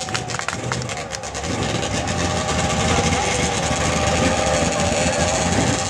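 Tractor-tire mud truck's engine running at the line, getting louder about a second and a half in and then holding steady.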